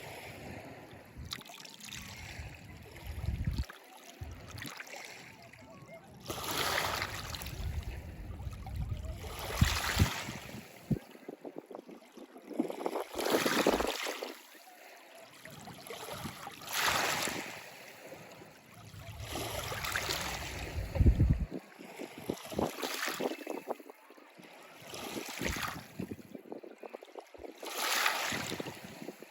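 Waves washing in one after another, each a swell of rushing water noise that rises and fades, about every three seconds, with wind buffeting the microphone as a low rumble.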